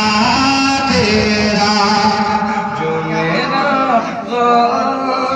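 A man singing a naat, an Urdu devotional poem in praise of the Prophet, through a microphone. He holds long notes that step and waver in pitch.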